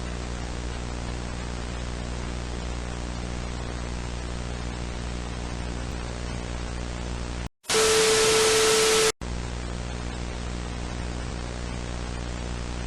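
Steady electrical hum under a hiss of broadcast static. About seven and a half seconds in it cuts out, and a loud burst of static with a steady tone plays for about a second and a half and stops sharply. Then the hum and static come back.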